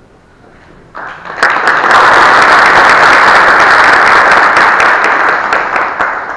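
Audience applauding, starting abruptly about a second in, loud and steady, then dying away near the end.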